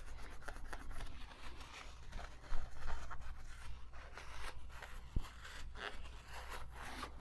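Light, scratchy rubbing and scraping as dust is cleaned from inside a vintage Singer sewing machine's mechanism, in many short strokes, with a sharper click about two and a half seconds in.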